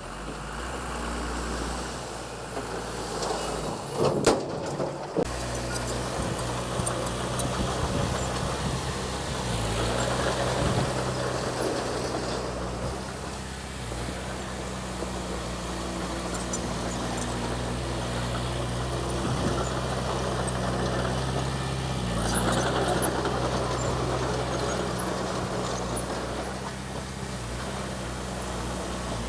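Diesel engine of heavy earthmoving machinery running steadily, its note swelling and easing a little with the load. There is a sharp clank about four seconds in.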